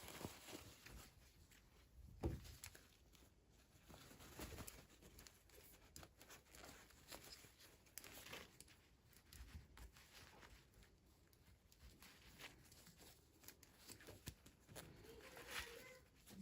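Faint, scattered rustling and small clicks of toy packaging being opened and handled, with one sharper tap about two seconds in.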